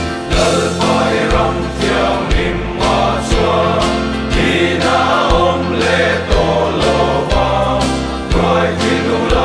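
Men's choir singing a gospel song together, backed by a band with drums keeping a steady beat under a bass line.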